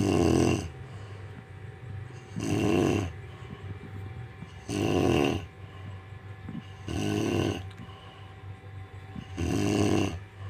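A woman snoring in deep sleep: five snores, each about a second long and about two and a half seconds apart.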